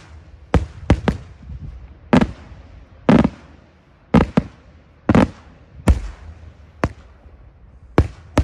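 Daytime fireworks: aerial shells bursting overhead with sharp bangs, about a dozen in irregular succession. A few of them are heavier, with a longer rolling echo.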